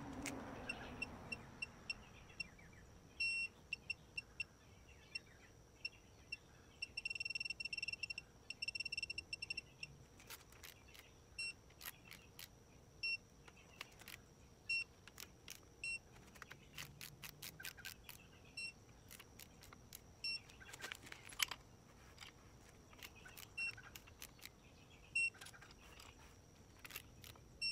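Digital torque wrench beeping in short high beeps as it nears and reaches its set torque on connecting-rod bolts, with a fast run of beeps about seven to nine seconds in. Ratchet clicks come in between as the wrench is worked, on a 15 ft-lb first pass.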